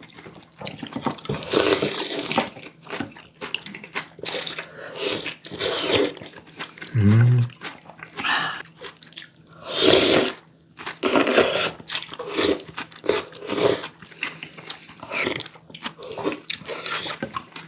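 Close-miked mukbang eating: chewing and crunching mouthfuls of spicy stir-fried baby octopus with bean sprouts, in irregular bursts, with a brief hummed sound about seven seconds in.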